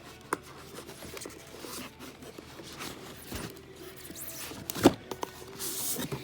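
Drone packaging being handled: scattered scrapes, clicks and rustles of box and packing material, with a sharp knock about five seconds in and a short rustle just after.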